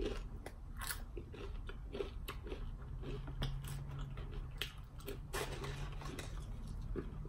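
A person chewing crunchy tortilla chips with cheese dip, a run of many short, sharp crunches. A low steady hum joins from about three seconds in.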